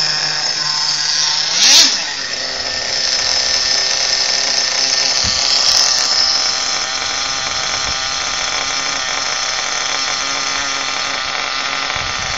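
Small nitro glow engine of a Kyosho FW-05RR RC Formula 1 car running with a steady high-pitched buzz, blipped hard once about two seconds in and rising again briefly around six seconds in.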